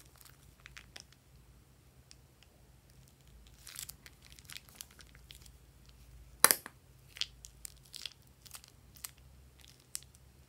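Plastic spatula stirring glossy slime in a glass bowl: scattered sticky crackles and pops, with one sharp click about six and a half seconds in, the loudest.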